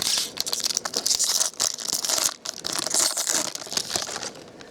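Crinkly wrapper of a baseball-card pack being torn open and handled, a dense run of crackling with sharp little snaps that eases off near the end.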